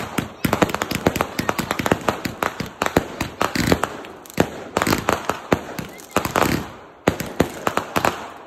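Fireworks going off in a rapid barrage, a dense string of bangs and crackling as shells burst overhead, with a brief lull about seven seconds in.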